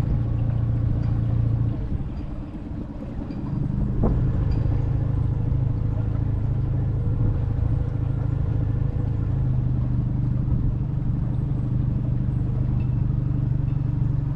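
Small boat's outboard motor running steadily under way. It has just been serviced with new spark plugs. The engine drops in level about two seconds in and comes back up a second or so later, with a sharp click just after.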